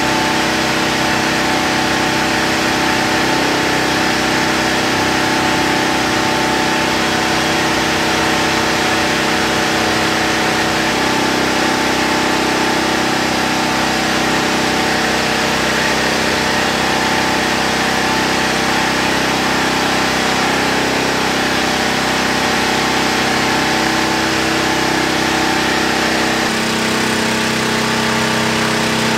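An engine running steadily at idle, its tone shifting about 11 seconds in and again near the end.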